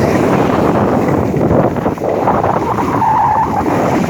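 Skis scraping and hissing over snow on a downhill run, with wind rushing over the microphone. A short whine-like tone comes in about three seconds in.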